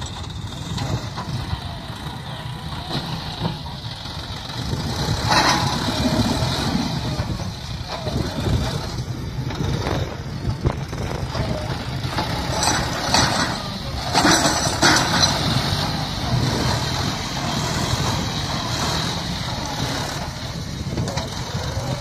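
John Deere 5065E tractor's diesel engine running steadily as the tractor drives its front blade against a tree trunk to push it over. A few short, sharp noises stand out about five, ten and thirteen to fifteen seconds in.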